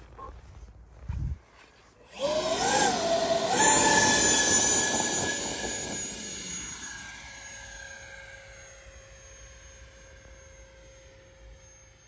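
Twin 70 mm FMS electric ducted fans of a 3D-printed BAe 146 model airliner spool up suddenly to a loud whine for the takeoff run, the pitch wavering with the throttle. The whine then fades slowly as the model climbs away. A brief low thump comes about a second in.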